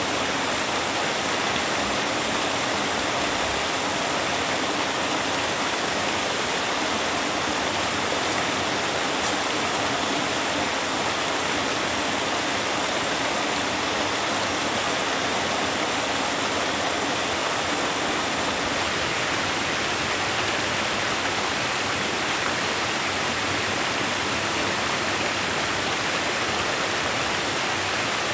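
Steady rushing of water, an even hiss-like noise with no breaks.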